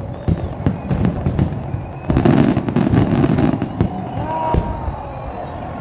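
Aerial fireworks shells bursting in quick succession, with many sharp bangs and crackling. A denser, louder barrage comes about two seconds in, and one more sharp bang follows near the end.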